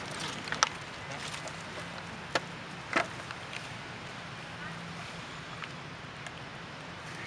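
Outdoor background hiss with a faint steady low hum and a few sharp clicks and taps, the loudest about three seconds in.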